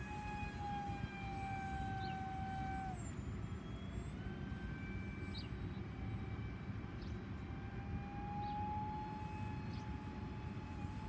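Electric motor of a small RC plane whining as it flies overhead, throttled back about three seconds in and brought back up a second later. Low wind rumble on the microphone underneath.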